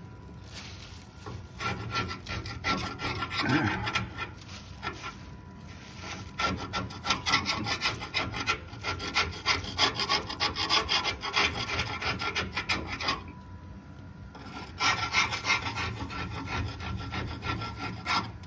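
Rapid back-and-forth hand scraping of caked road grime off a 1956 Cadillac's steel frame, in three bouts of quick strokes with short pauses between.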